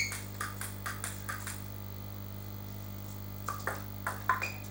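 Celluloid-type table tennis ball clicks: a ringing ping at the start, then a string of light, evenly spaced ball bounces over the first second and a half. About three and a half seconds in comes a quick exchange of bat hits and table bounces, five sharp clicks in about a second. A steady low hum sits underneath.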